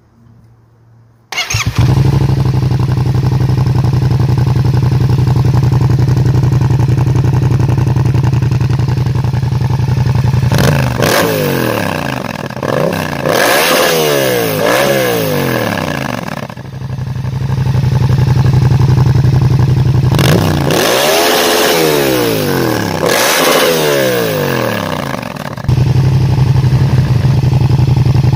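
Yamaha MT-07's 689 cc parallel-twin engine through a short Dominator slip-on exhaust, starting about a second in and then idling steadily. In two spells it is revved with repeated throttle blips that rise and fall in pitch, settling back to idle between them and near the end.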